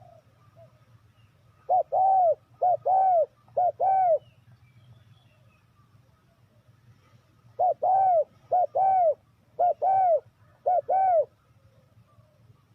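Spotted dove cooing: two phrases of soft, repeated coos, each a short note followed by a longer arching one. The first phrase has three such pairs and the second, starting about halfway through, has four.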